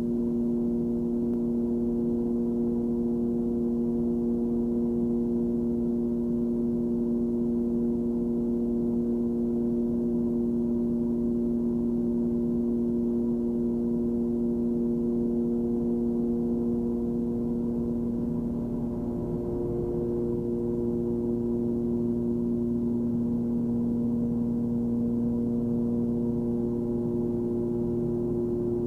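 Cabin drone of a Cessna 340's twin piston engines and propellers in steady cruise: an even hum with several steady tones over a low rumble, wavering slightly about two-thirds through.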